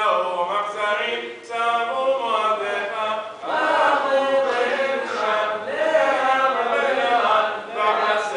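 Men's voices chanting Sephardic Selichot penitential prayers in Hebrew, in a traditional melodic recitative. The chant dips briefly twice and grows fuller and louder about three and a half seconds in.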